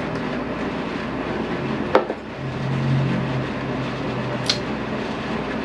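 A man tasting a neat whisky: a small glass is set down on the table with a sharp click about two seconds in, then a low closed-mouth hum, and near the end a short hissing breath through the teeth, over a steady room hum.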